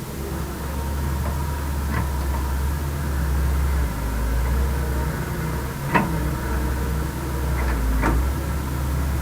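Heavy diesel machinery running steadily with a low drone, its tone shifting a few times, with sharp metallic knocks about two seconds in, a louder one near the middle and two more near the end.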